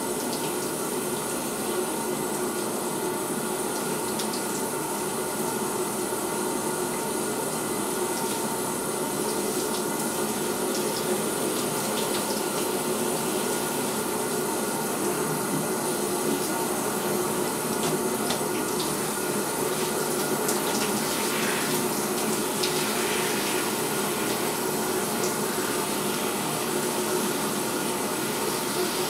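Shower spray running steadily, water pouring onto a soaked fake-fur coat.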